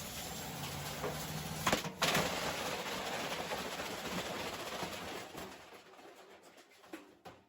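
Washing machine running with a steady rushing noise and a couple of sharp knocks about two seconds in, fading away over the last two seconds.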